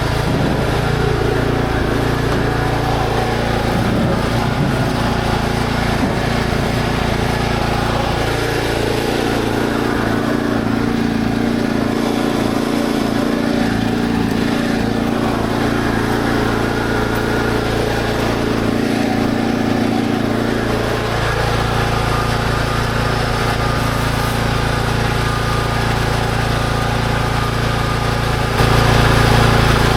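An engine running steadily, with its note shifting about 8 seconds in and again about 21 seconds in, then getting louder near the end.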